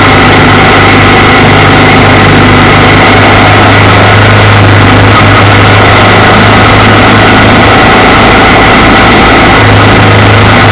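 Motorcycle engine running steadily at cruising speed, with a constant low hum and a dense rush of wind and road noise on a bike-mounted camera's microphone.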